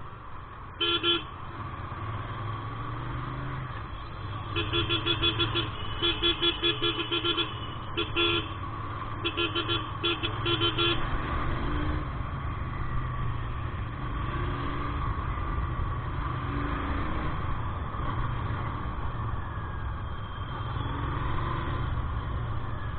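A vehicle horn honking in groups of rapid short beeps, over the steady low rumble of engines and traffic noise.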